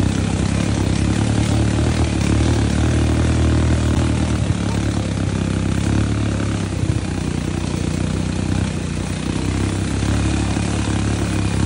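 ATV engines running steadily at low speed, holding one unchanging pitch with no revving.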